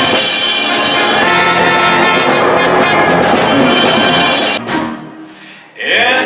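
Orchestra playing loudly with brass and a suspended cymbal struck with soft mallets. The sound cuts off sharply about four and a half seconds in and dies away. A man's singing voice comes in at the very end.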